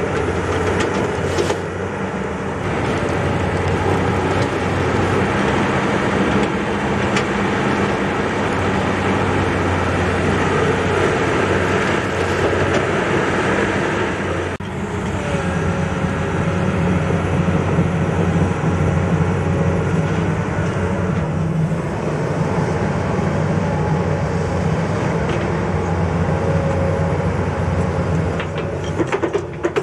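Komatsu hydraulic excavator's diesel engine running steadily under load as the machine digs, with a few knocks from the working arm and bucket. The sound dips and shifts slightly about halfway through.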